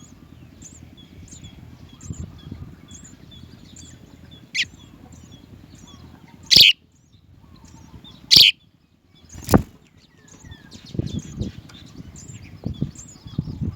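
House sparrows chirping, a steady string of small high chirps, with a few sudden loud wing flaps in the middle and low rustling and bumping near the end.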